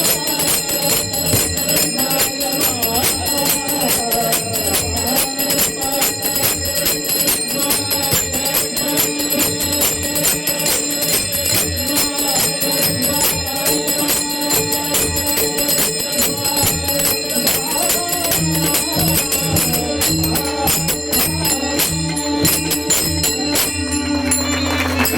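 Devotional bhajan music: small hand cymbals clashing in a fast steady beat over sustained melody and low drum strokes. The piece comes to a close near the end.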